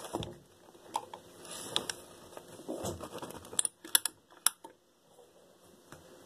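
Sharp clicks and light plastic clatter of a toothbrush and toothpaste tube being picked up and handled: a few separate clicks, then a quick run of about four near the middle.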